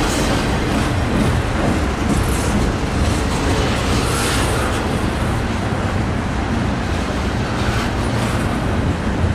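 A train passing on the BNSF line: a loud, steady rumble that runs on without break.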